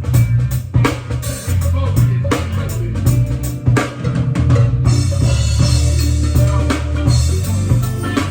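Band music with a drum kit playing a beat of kick-drum and snare hits over a deep bass line.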